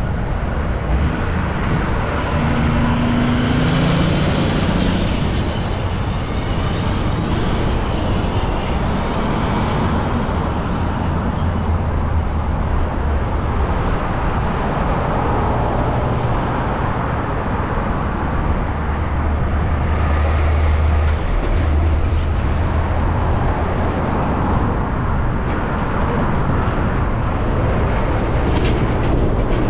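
Steady traffic noise from cars and trucks passing on the highway lanes beside the path, over a heavy low rumble, with a passing vehicle's engine drone changing pitch a few seconds in.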